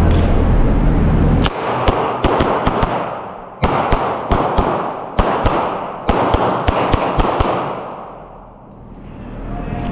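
CZ Shadow 2 pistol fired in quick strings, about seventeen shots between roughly 1.5 and 7.5 seconds in. Each shot echoes in the long reverberation of an indoor range.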